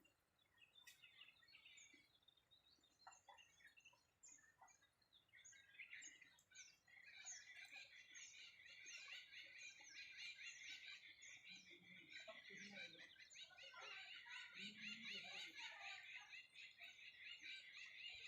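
Faint birdsong: scattered short chirps that thicken about six seconds in into a dense, continuous chorus of many small birds chirping.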